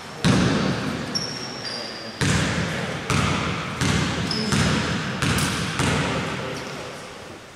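A basketball bounced on a wooden gym floor about seven times at an uneven pace, each bounce echoing through a large hall: a player dribbling at the free-throw line before the shot.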